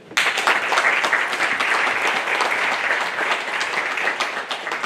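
Crowd applauding: many people clapping together, starting abruptly and easing off slightly near the end.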